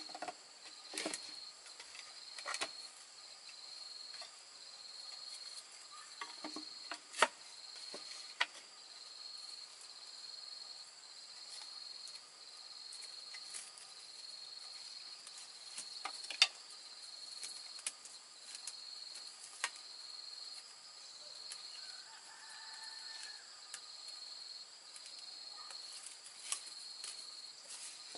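Insects chirping steadily in a rapid high pulsing trill, with scattered sharp clicks and knocks of bamboo poles and tools being handled during assembly.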